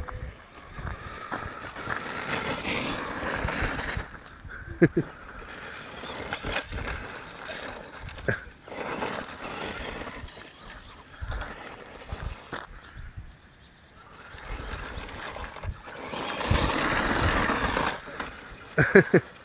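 Traxxas Stampede radio-controlled monster truck driving over gravel: its motor and tyres on loose stones swell up three times as it speeds along and fade between runs. A few sharp knocks stand out, the loudest about five seconds in and a quick cluster near the end.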